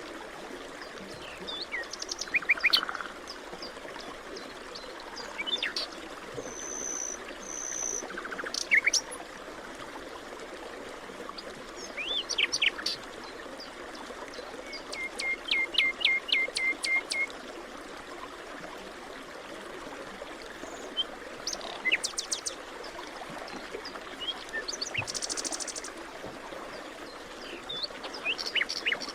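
Several songbirds calling and singing in a forest, with short chirps and whistled notes scattered throughout and a quick run of about ten repeated notes about halfway through. Beneath them runs a steady soft rushing background.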